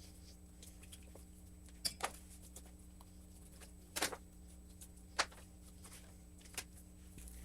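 Knife knocking sharply on a cutting board about six times, in quick pairs and then singly, while raw chicken thighs are cut off the bone, with a steady low hum underneath.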